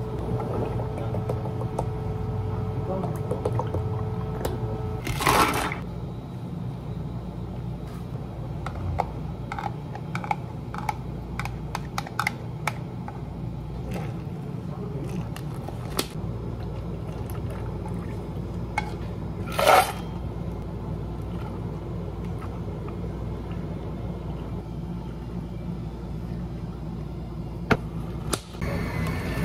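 Iced-drink making at a café counter: pouring and small clicks and knocks of plastic cups and tools over a steady low hum, with two short, loud noises about five seconds and twenty seconds in. Near the end a domed plastic lid is pressed onto a cup.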